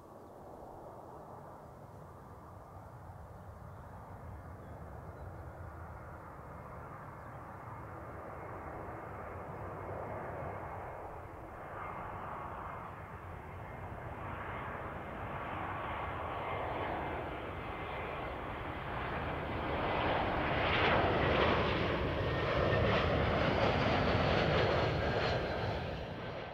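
Jet engines of a Wizz Air Airbus A320-family airliner on landing approach, with the gear down, growing steadily louder as the plane nears, with a faint steady whine over the engine noise; loudest near the end as it passes low overhead.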